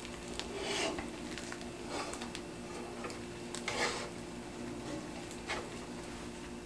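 Silicone spatula scraping and pushing folded scrambled eggs around a stainless steel frying pan: a few soft scrapes and taps over a low steady hum.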